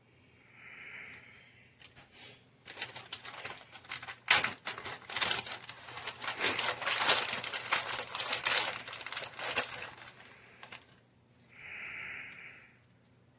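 A plastic bag of shredded pizza cheese crinkling and rustling while the cheese is shaken out onto a pizza, starting about three seconds in and lasting about eight seconds.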